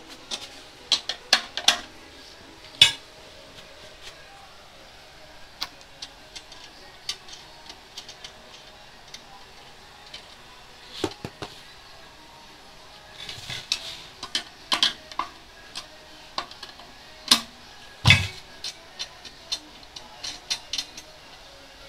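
Intermittent metallic clicks, clinks and knocks as the front bolts and end cap of a stainless-steel screw juicer are undone and removed to take it apart for cleaning, with a flurry of clinks about two-thirds of the way through and one louder knock shortly after.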